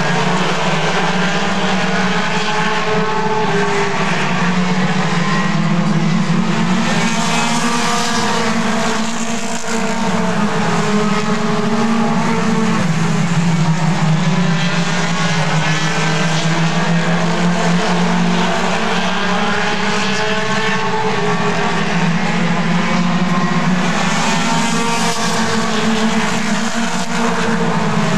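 Several mini stock race cars' four-cylinder engines running at speed together on the oval, their pitches wavering up and down as they lap. The sound swells twice as cars pass close by.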